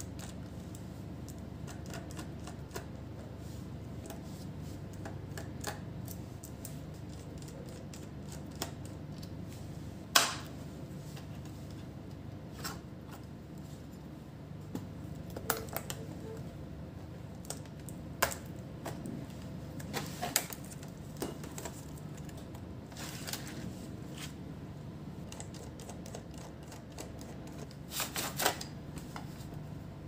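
Irregular clicks, snaps and scrapes of an Asus laptop being taken apart: a screwdriver working screws out of the plastic base, then a metal pry tool prising the keyboard's clips loose, with a sharp snap about ten seconds in. A steady low hum runs underneath.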